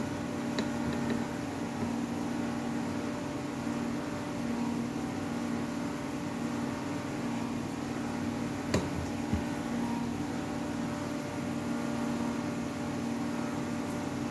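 A steady low mechanical hum from an appliance or fan, with a faint steady higher tone over it. Two small clicks come a little past halfway.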